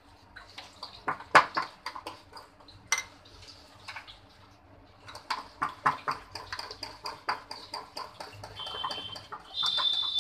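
A spoon stirring besan dhokla batter in a glass bowl, clicking and scraping against the glass, busier from about five seconds in, as baking soda is mixed in to make the batter foam. Near the end, a short high-pitched chirping tone sounds twice.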